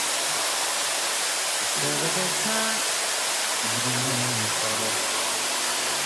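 Steady rush of water from a waterfall and rocky stream, with background music in low sustained notes underneath.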